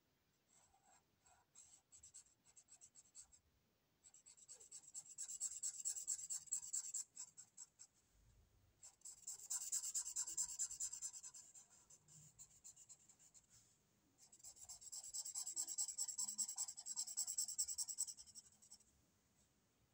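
Felt-tip marker scrubbed quickly back and forth across paper, filling in a patch of colour. A few short strokes come first, then three long spells of fast scratchy scribbling, each several seconds long, with short pauses between.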